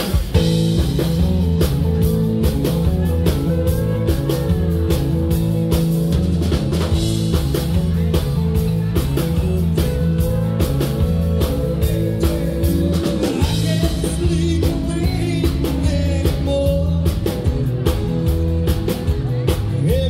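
Live country-rock band playing a song on a drum kit, bass and electric guitars, with a steady beat.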